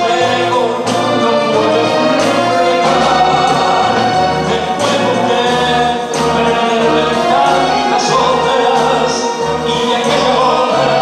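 Band orchestra playing a tango song live, with a male singer's voice over sustained melody lines. Low bass notes pulse evenly through the second half.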